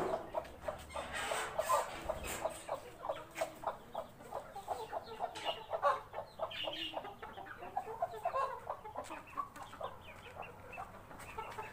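Several chickens clucking, a steady run of short repeated clucks.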